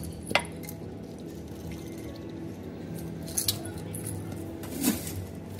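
Soft background music with a few short, sharp clinks of ice against a clear plastic cup as milk tea goes over the ice.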